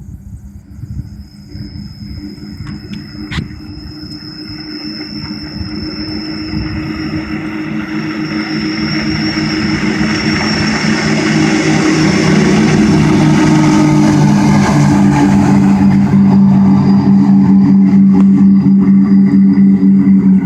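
Twin Mercury 175 Verado four-stroke outboard motors running as the boat gets under way, growing louder over the first dozen seconds and then holding a steady drone.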